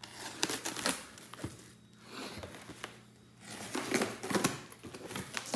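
A cardboard shipping box being opened by hand: packing tape pulled and torn, cardboard flaps and packing material crinkling and scraping. It comes in irregular bursts of crackling and clicks, busiest in the first second and again from about four seconds in.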